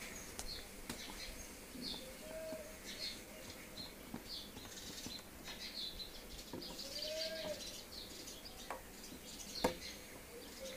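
Birds chirping in short, high calls, with a few soft, lower calls that rise and fall. A few light clicks are scattered among them.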